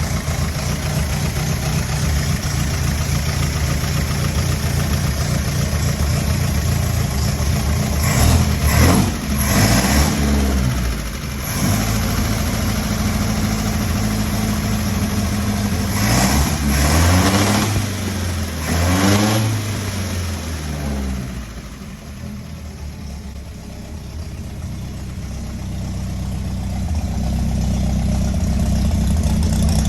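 1923 Talbot racing car engine idling with a rough, steady beat, blipped up in revs and back down a few times about a third of the way in and again a little past halfway. It then settles to a quieter idle and grows louder again near the end.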